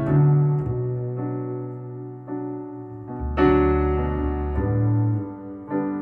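Slow piano chords from a ballad played back through Qualio IQ open-baffle loudspeakers, each chord left to ring. A new chord is struck about three seconds in, with a deep bass note under it, and another just before the end.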